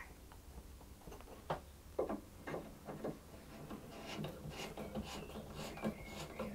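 Light scrapes and clicks of a file on an ebony cello peg. Then the wooden peg is twisted and pushed into its hole in the cello's pegbox: wood rubbing on wood in small jerks, with a short squeak near the end.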